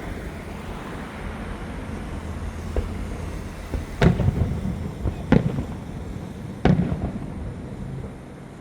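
Fireworks going off: a small pop, then three loud bangs about a second and a half apart, each trailing off in a low rumbling echo.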